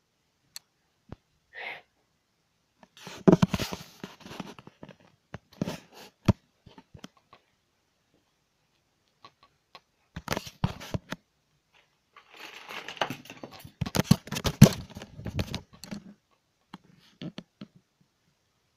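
Handling noise from a handheld camera being jostled: bursts of rustling, scraping and sharp knocks, with quiet gaps between them. The longest and loudest burst comes in the last third.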